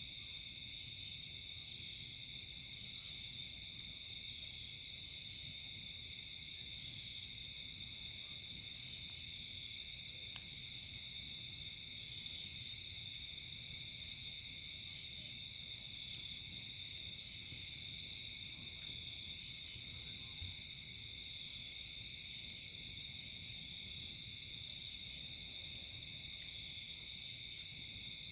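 Steady, dense chorus of night insects trilling, with a second, higher buzzing insect call that comes in about every five to six seconds and lasts about a second and a half each time. Two faint single clicks in the middle and near the end.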